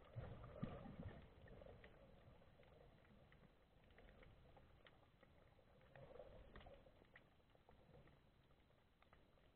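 Near silence from a camera underwater: faint scattered clicks and a soft low rumble about half a second in.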